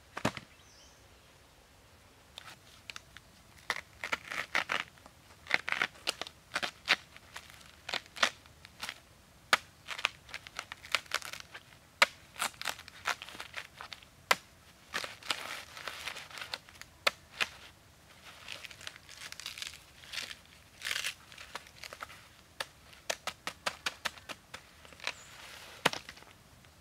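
A bamboo pole knocks once on the ground as it is set down. It is then cut and worked by hand, which gives a long, irregular run of sharp cracks, scrapes and tearing sounds.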